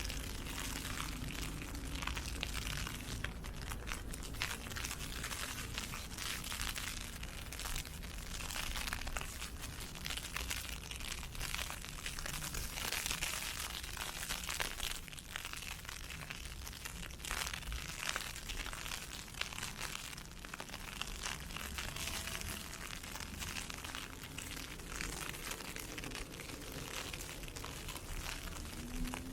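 Ice pellets pattering on an umbrella, a dense irregular crackle, over a low rumble of wind.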